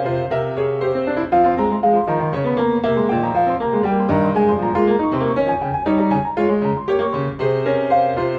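Piano music: a quick, busy run of notes over held low bass notes, with no pauses.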